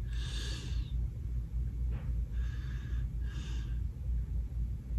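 A man breathing close to the microphone: a few short, noisy breaths over a steady low rumble, with one small handling click about two seconds in.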